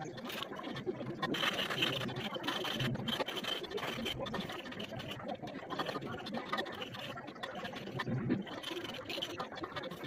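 Thin steel umbrella rib being sharpened by hand, its tip rubbed back and forth along a flat sharpening block: repeated scratchy scraping of metal on the abrasive.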